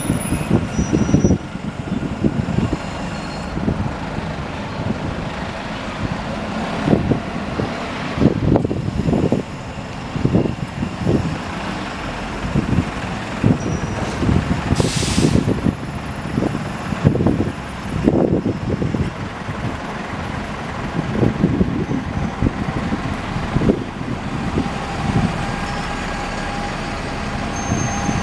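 Heavy diesel vehicle running, with irregular low thumps and a short hiss of compressed air about fifteen seconds in, like an air brake.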